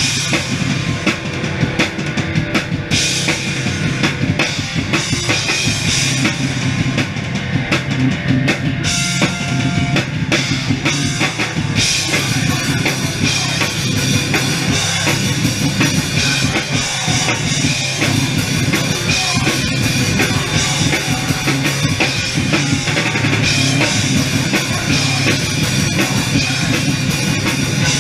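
A heavy rock band playing loud live: distorted electric guitars, bass guitar and a pounding drum kit, heard close from the stage. The first dozen seconds are broken by short, sharp stops; after that it plays on steadily.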